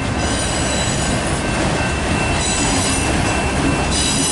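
Freight train of auto rack cars rolling past, with a steady rumble of steel wheels on rail. A high-pitched metallic squeal from the wheels comes and goes three times.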